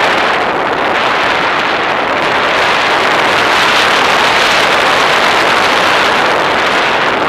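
Steady rushing airflow noise on a model aircraft's onboard camera in flight, with no clear engine or motor pitch. It swells a little in the middle.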